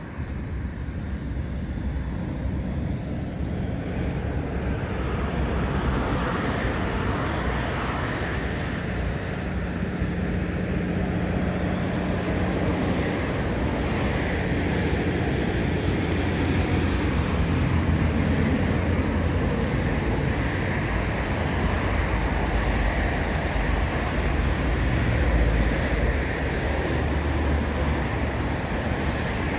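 Steady low rumble of distant engines across open water, with a low hum that stands out for a few seconds about a third of the way in.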